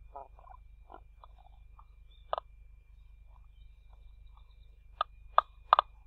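Black stork at the nest giving short, abrupt calls: a few soft ones, a louder one about two seconds in, and three quick loud ones near the end.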